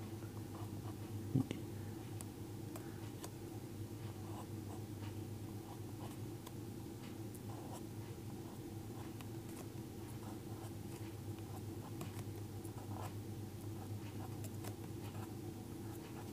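Faint scratching and light ticks of a pen writing on paper, over a steady low hum; a single light knock about a second and a half in.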